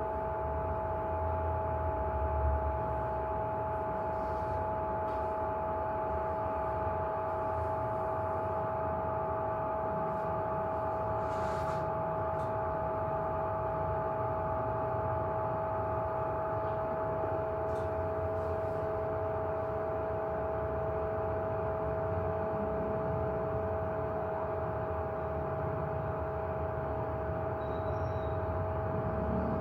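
Steady machine hum holding a few fixed tones over a low rumble, with a few faint ticks.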